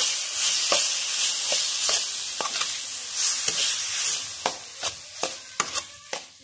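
Boiled potato being mashed and stirred into onion masala in a hot oiled tawa with a perforated steel spatula. The frying sizzles, louder in the first half, while the spatula clicks and scrapes against the pan, more often near the end.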